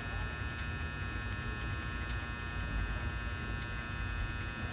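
Steady equipment hum with a whine of several fixed tones, and a few faint short ticks as the Palm Pilot is tapped.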